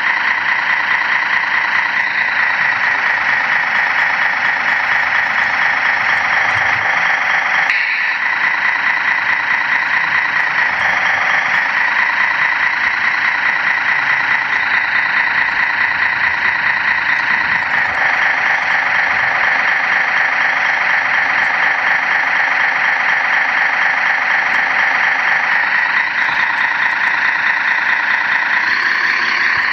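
Engine sound of a radio-controlled model heavy-duty tractor truck, running steadily with a few brief shifts in pitch.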